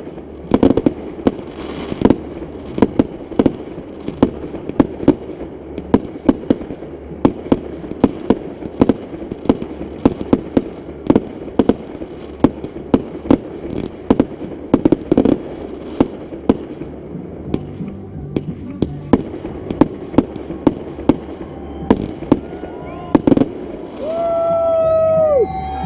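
Fireworks going off in a rapid barrage, several sharp bangs a second with rumbling booms between them. Near the end the bangs give way to people cheering and whooping.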